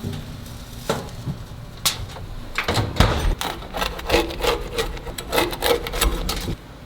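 Kitchen handling noise: a run of sharp knocks and clatter with rubbing and scraping in between, as of items being set down and worked on a hard surface. It stops abruptly near the end.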